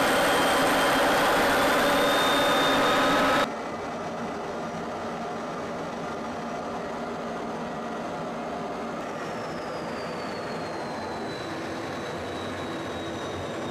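Steady in-flight jet aircraft noise: a rush of engine and air with a high whine over it. About three and a half seconds in it cuts abruptly to a quieter, steady rush whose whine slowly falls in pitch.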